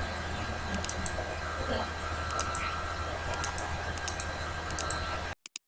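Steady hum of a CNC lathe standing idle, with scattered light clicks every half second to second. The sound cuts out briefly near the end.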